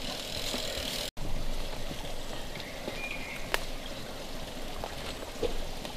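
Steady trickling of a small forest stream, with a few sharp clicks from mountain bikes crossing the muddy stream bed, the loudest about three and a half seconds in.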